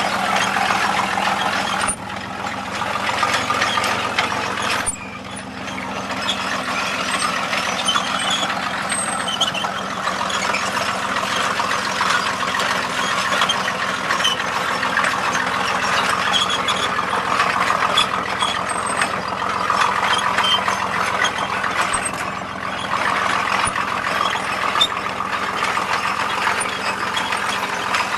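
Engine of heavy construction machinery running steadily, with brief sudden drops in level about two seconds in, about five seconds in and again near the end.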